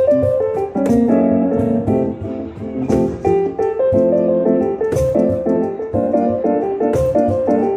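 Red stage keyboard played live on a piano sound: a busy passage of quick notes and chords in the middle register, with no singing. A sharp, crisp hit sounds about every two seconds.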